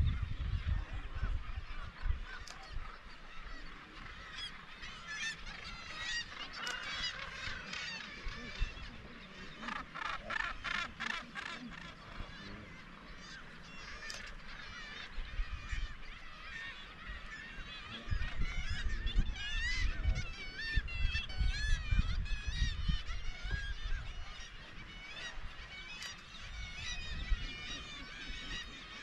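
Seabird colony on sea cliffs: a dense chorus of many birds calling at once, harsh wavering calls overlapping without pause. A low rumble comes in under the calls about two-thirds of the way through.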